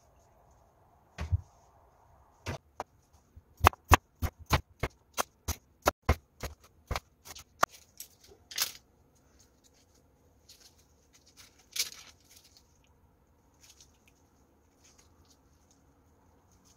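Kitchen food-prep handling sounds: a thud about a second in, then a quick run of sharp knocks and clicks, about four a second, followed by a few single knocks and faint rustles of gloved hands handling a fish cake sheet on a plastic cutting board.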